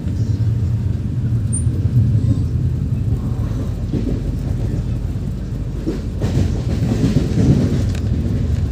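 Shatabdi Express passenger coach running at speed, heard from inside the carriage: a steady, loud low rumble of the wheels on the track.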